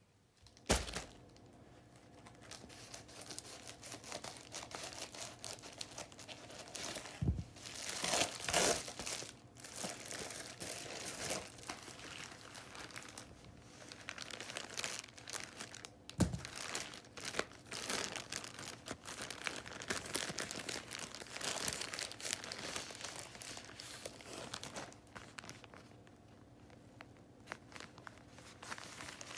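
Plastic mailer bag and product packaging torn open and handled, crinkling and rustling unevenly, with tearing sounds and a few sharp knocks.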